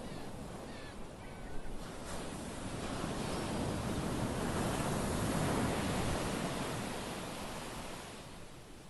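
Small waves washing onto a pebble shore, one surge swelling up to a peak about halfway through and dying away near the end.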